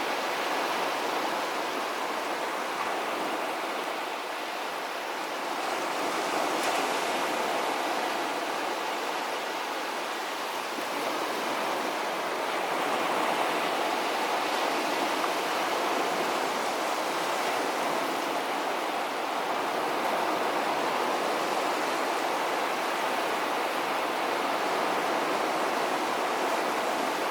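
Sea waves washing onto a beach: a continuous surf wash that slowly swells and eases.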